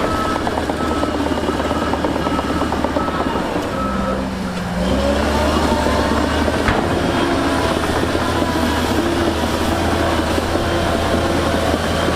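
Heavy earthmoving machinery engines running steadily, with a reversing alarm beeping at an even pace for the first few seconds. A lower-pitched alarm beeps from about halfway on.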